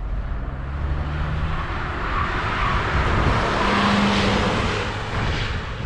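Lada Vesta at highway speed, about 100–120 km/h, heard inside the cabin: steady tyre and wind noise over a low road rumble, swelling in the middle and easing off near the end.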